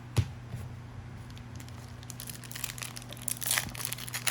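A sharp tap just after the start, then a trading-card booster pack's wrapper crinkling in the hands, the crackling growing denser from about halfway.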